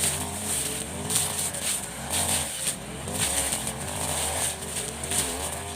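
Husqvarna 542 RBS backpack brush cutter's two-stroke engine running at high revs, its pitch wavering up and down as the blade works through brush. A swishing hiss comes and goes about once a second.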